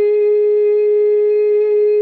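A single musical note held steady without a break, with evenly spaced overtones and a faint fast flutter: a sustained meditation drone.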